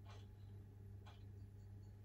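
Near silence: a faint low steady hum with a soft, short tick about once a second.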